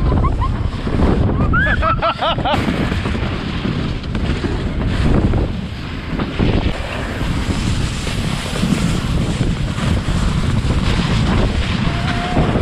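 Wind buffeting the microphone of a camera riding a snow tube down a packed-snow tubing lane, with the steady rush of the tube sliding over the snow. A short high squeal comes about two seconds in.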